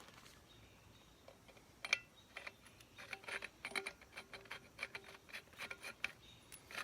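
Threaded metal handle sections of a multi-tool folding shovel being screwed together by hand. A single click comes about two seconds in, then a run of quick small clicks and scrapes, about four or five a second.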